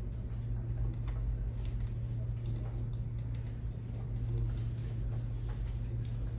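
Scattered light clicks of a computer mouse and keyboard being operated at a workstation, over a steady low hum.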